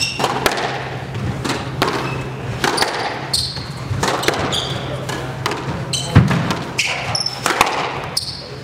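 Squash rally: the ball is struck by rackets and smacks off the court walls in a run of sharp, irregular knocks, the loudest about six seconds in. Players' shoes squeak briefly on the hardwood floor between shots, over a steady low hum.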